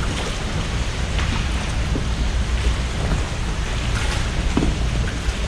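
Steady wind rumbling on the microphone over water noise, with a few faint ticks.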